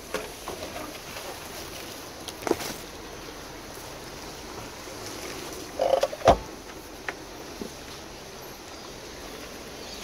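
Toyota LandCruiser 100 Series 4WD creeping into a rocky river crossing, heard from inside the cab as a steady low running noise. A sharp knock comes about two and a half seconds in and a louder, deep thump about six seconds in as the vehicle drops over rocks.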